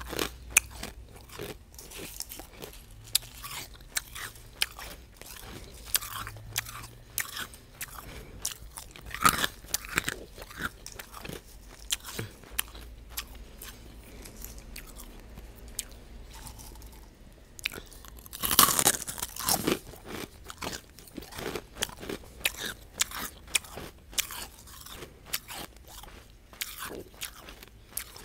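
Refrozen crushed ice being chewed right at an earphone microphone: an irregular run of sharp crunches, with the loudest cluster about two-thirds of the way through.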